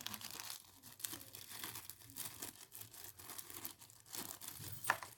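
A plastic packet of small drill accessories being handled and opened, rustling irregularly, with one sharper snap near the end.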